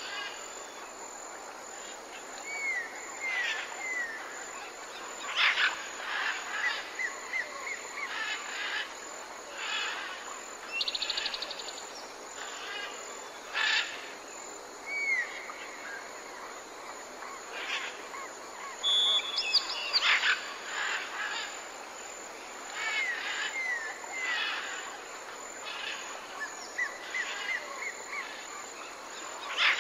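Several songbirds singing and calling: short chirps, clear slurred whistles and a quick trill over a steady hiss. The same passage of song comes round again after about twenty seconds, as from a looped recording.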